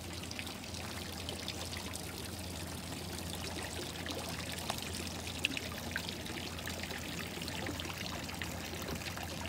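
Steady rushing background noise with a low hum underneath and faint scattered high chirps or ticks.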